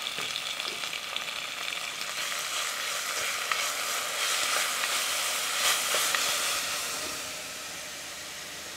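Diced onion and tomato sizzling in hot oil in a pot, stirred with a wooden spoon. The sizzle crackles steadily, is loudest midway, and eases off a little near the end.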